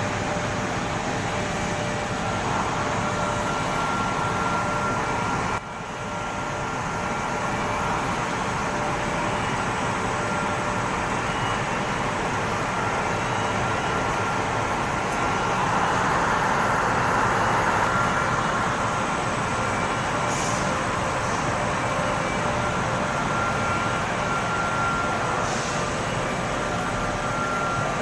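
Steady factory-floor noise of an automotive glass pre-processing line running: a continuous whir of roller conveyors and machinery with faint steady whines. The level drops sharply for a moment about five and a half seconds in.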